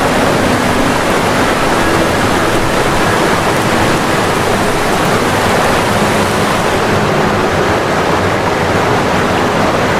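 Heavy rain falling in a steady, dense rushing wash of noise, like pouring water.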